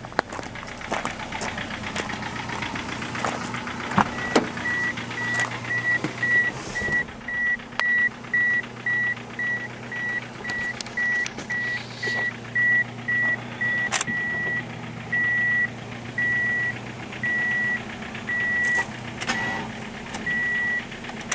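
1997 Ford Escort's dashboard warning chime beeping steadily, about one and a half times a second, starting about four seconds in, with a few clicks before it. The engine does not start: the battery is too weak.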